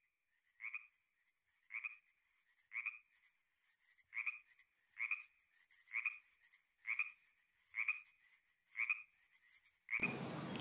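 A frog croaking over and over, about a dozen short calls at roughly one a second.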